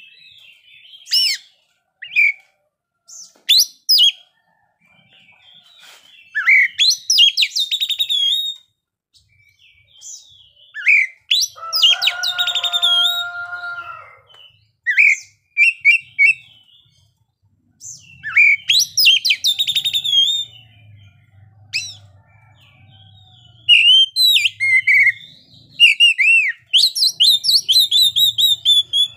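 Oriental magpie-robin singing in bursts of varied high whistles, trills and fast chattering phrases, separated by short pauses. Near the middle comes one lower, buzzier phrase of about two seconds.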